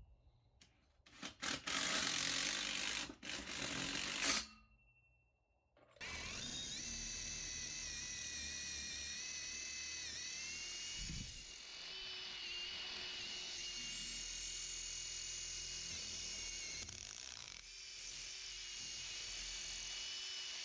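Electric drill boring holes into concrete for Tapcon anchor screws. A few seconds of loud, harsh drilling come first, then a long steady motor whine that spins up, dips briefly under load and ends abruptly.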